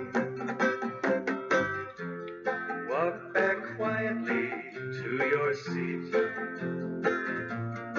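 Music: a guitar plucks the accompaniment of a children's action song in a short instrumental stretch between sung lines.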